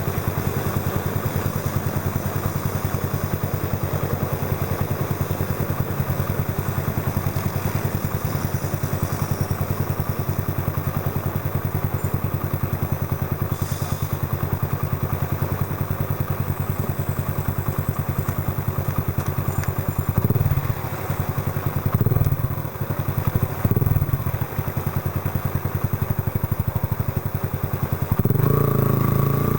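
Yamaha Factor 125's single-cylinder four-stroke engine running steadily through a Roncar aluminium aftermarket exhaust. A few short changes in engine speed come about two-thirds of the way in, and the engine pulls louder near the end.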